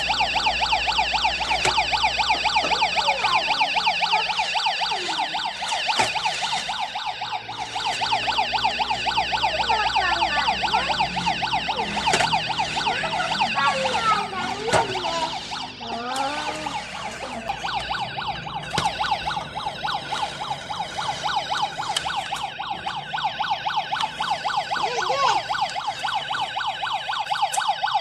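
Toy police car's electronic siren, a steady, rapid warbling tone.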